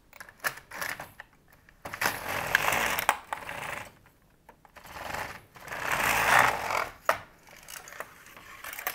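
Silver Reed LK-150 knitting machine carriage being put back on the needle bed and slid along it: sharp plastic clicks, and twice a rasping slide of a second or two as it runs over the needle butts.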